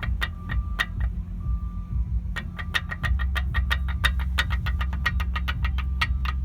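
Seat Leon brake noise: rapid, slightly irregular ticking, several clicks a second, over the steady low hum of the car running, with a short break about a second in. The noise persists although the brake parts are all new.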